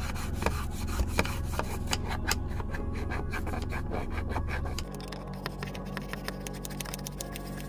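Small stiff-bristled brush scrubbing a grimy plastic dashboard recess: a fast run of short rasping strokes.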